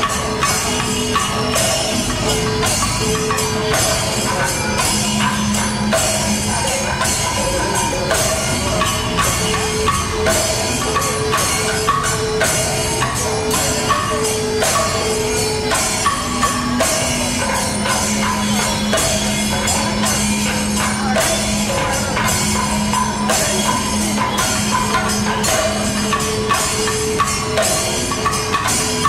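Music with a steady percussion beat, about two strokes a second, over long held melody notes.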